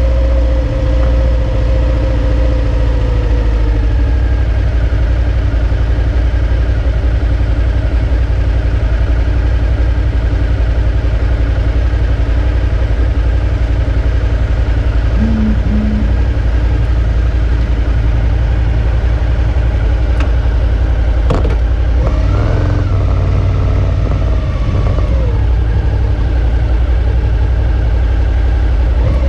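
Suzuki V-Strom 650's V-twin engine running at idle just after being started, steady throughout. A little over twenty seconds in the revs briefly rise and fall a few times.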